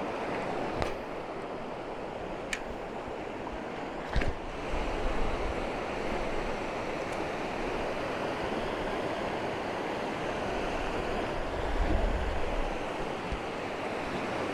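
South Platte River flowing, a steady rushing of water, with a few sharp clicks in the first four seconds and low rumbles of wind on the microphone.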